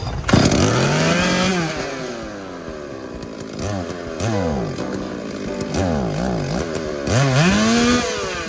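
Stihl MS382 two-stroke chainsaw engine running and revved repeatedly on the throttle trigger, its pitch rising and falling with each rev. There is a long rev about a second in, several quick blips in the middle, and another long rev near the end.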